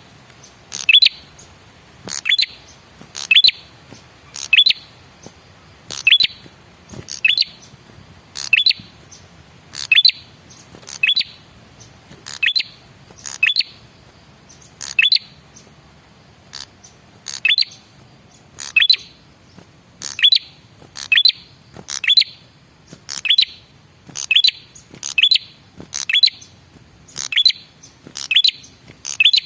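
Male prenjak kepala merah, a small songbird, giving a steady string of sharp, chirping call notes about one a second, each falling slightly in pitch. It is a lure call, played to get other birds of the kind to answer.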